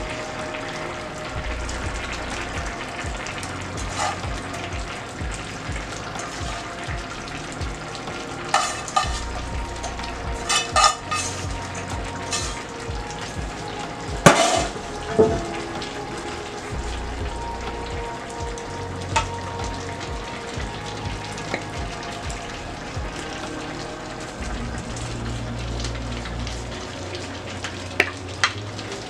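Food sizzling in frying pans on a stovetop: festival dumplings frying in oil under a glass lid and ackee and saltfish simmering. A few sharp clinks and knocks of a bowl, lid or utensil against the pans break in, the loudest about halfway through and a couple more near the end.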